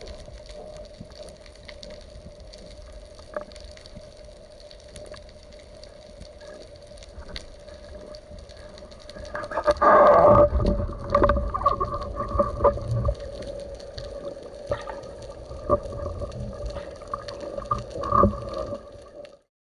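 Underwater sound picked up by a diver's camera: a steady hum with faint crackle. About ten seconds in, a sudden loud bang as a speargun shot strikes a fish on the seabed, followed by a few seconds of low rumbling and scattered sharp knocks.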